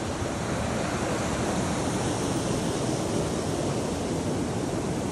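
Mountain stream rushing over rocks: a steady, even roar of running water.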